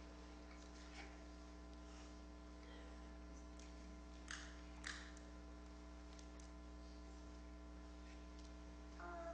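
Near silence: a steady electrical mains hum, with two faint clicks about four and five seconds in.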